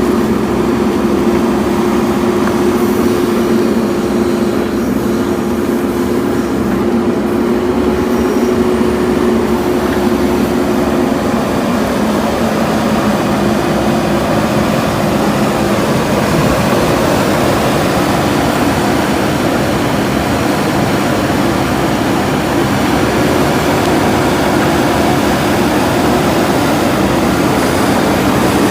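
JCB backhoe loader's diesel engine running steadily while the machine works, a constant droning hum with no break.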